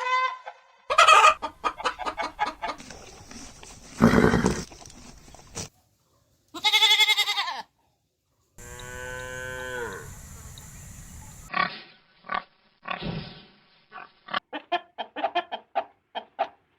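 Several farm animal calls cut one after another, among them one long call of about three seconds that drops in pitch at the end. In the last five seconds a chicken clucks in quick, short notes.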